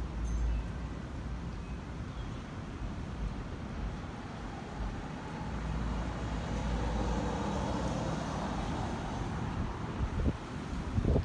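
A vehicle passing on a neighborhood street, its sound swelling gradually in the middle and easing off again over steady outdoor background noise. Wind starts buffeting the microphone near the end.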